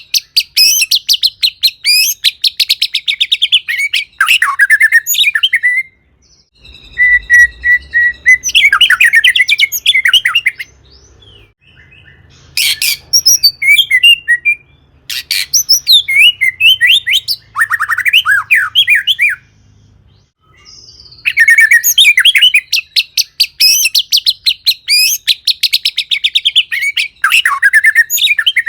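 White-rumped shama (murai batu) singing in loud bursts of fast, varied phrases and rapid trills, with short pauses between bursts.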